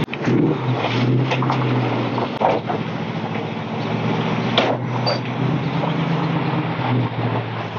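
Tow truck's engine running as it pulls away, its note rising and falling, with a few short knocks.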